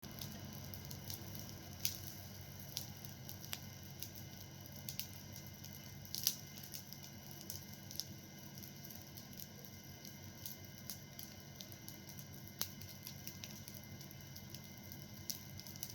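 Fire burning, with irregular crackles and pops over a low steady background; the sharpest pops come about two seconds in and about six seconds in.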